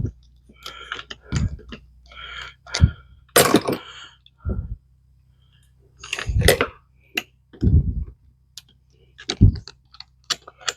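An SU carburettor piston being lifted and let fall again and again, giving a metal knock every second or two with lighter clicks of handling between. It is fitted with no spring or oil, and it is not dropping as smoothly as it should, which the mechanic takes to mean the jet may need to be re-centred.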